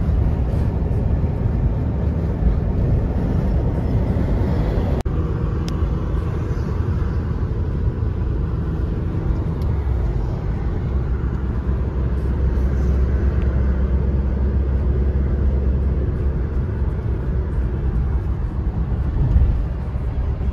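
Steady rumble of a car driving on a motorway, heard from inside the cabin: engine and tyre noise. There is a momentary drop-out about five seconds in.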